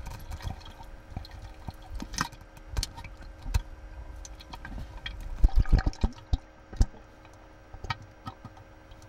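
Water sloshing and dripping around a handheld underwater camera housing moving at the river's surface, with scattered clicks and knocks on the housing and a run of louder dull thumps about five and a half to seven seconds in.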